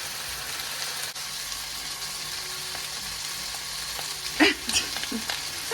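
Food sizzling steadily in a frying pan on the stove, with a short sharper sound about four and a half seconds in.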